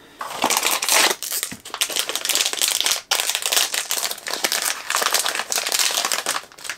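Plastic packaging crinkling and crackling as it is handled and pulled open by hand, with a short pause about three seconds in.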